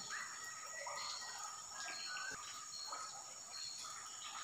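Quiet riverside ambience: a steady high-pitched drone with a few short chirping calls over it.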